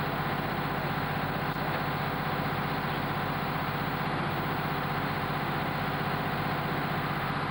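Mobile crane's diesel engine idling steadily, with an even low hum and pulse.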